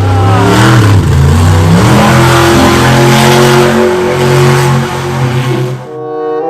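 Car engine revving loudly, its pitch rising and falling over the first two seconds and then holding steadier, before it fades out about six seconds in.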